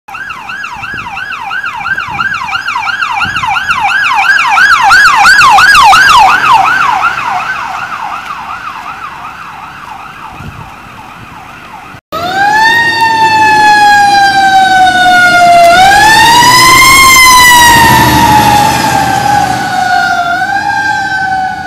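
Fire truck sirens. A fast electronic yelp swoops up and down, grows louder for about six seconds, then fades as the truck passes. After an abrupt cut a slower wail rises and falls in long sweeps, with engine rumble underneath.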